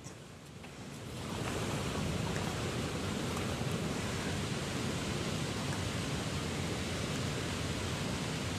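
Steady rushing outdoor noise of wind and water, swelling in over the first second and then holding even.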